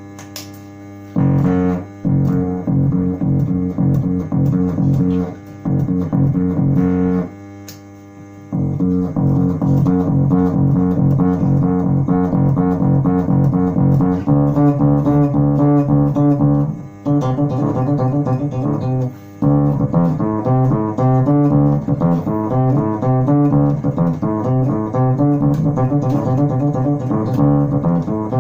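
Electric bass through an onboard passive diode fuzz playing a fast, rhythmic, dark-toned distorted riff, with two short breaks early on. A steady hum from the unshielded wiring carries through the pauses.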